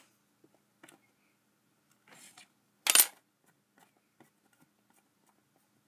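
Tabletop handling noises: a light rustle, then one sharp, loud clack about three seconds in as a small hard object knocks on the table, with faint ticks and taps around it.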